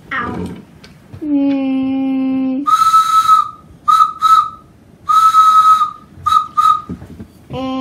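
Train whistle sound effects for a wooden toy train. A steady low tone lasts about a second and a half, then comes a run of breathy, high whistle toots: one long, two short, one long, two short.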